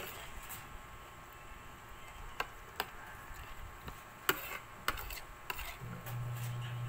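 Spoon or fork clicking against a plate while eating: about six sharp, separate clicks at irregular intervals. A steady low hum comes back near the end.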